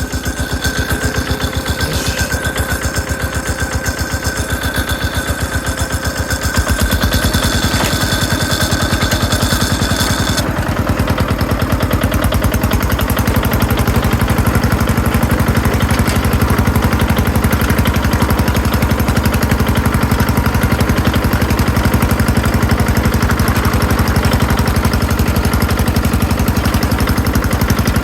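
Yanmar HD800 hand bulldozer's engine running with a rapid, even chugging. About six and a half seconds in it grows louder and deeper, and a high steady tone above it stops about ten seconds in.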